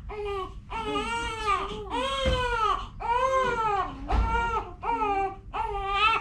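Newborn baby crying: a string of short wails, about seven in a row, each rising and then falling in pitch.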